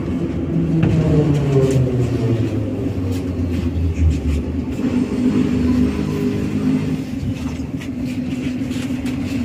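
Metro train braking into a station, heard from inside the car: its motor hum falls in pitch over the first few seconds as the train slows, then a steady low drone stays until it stops.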